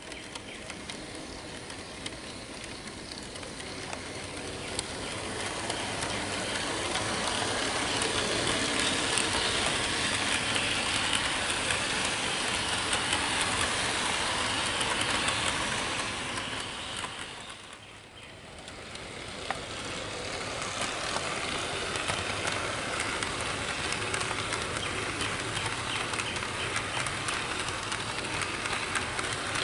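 HO-scale model train rolling close past: its wheels rattle and click over the track. The sound swells through the middle, dips briefly a little past halfway, then holds steady.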